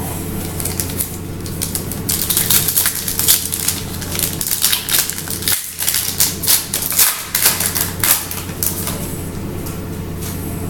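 Foil trading-card pack wrapper being torn open and crinkled by hand: a run of sharp crackles, busiest in the middle few seconds, over a steady low hum.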